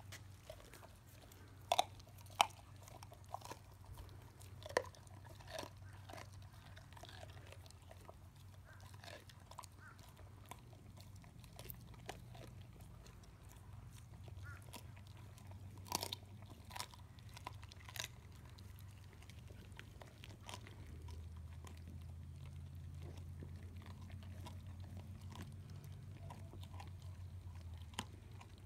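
Boxer-mix dogs chewing and crunching raw salmon heads, with irregular wet bites and sharp crunches, the loudest a couple of seconds in and midway. A low steady hum underneath grows louder in the last several seconds.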